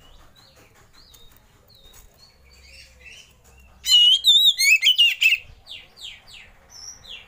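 Oriental magpie-robin singing: soft scattered chirps, then about four seconds in a loud burst of rapid, warbling whistled song, followed by a few quick falling notes.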